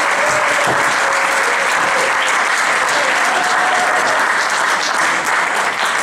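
Audience applauding with steady clapping, dying away near the end.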